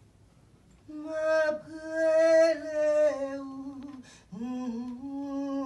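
A single voice singing two long, wordless held notes. The first begins about a second in; after a short break, the second slides up into its pitch and holds.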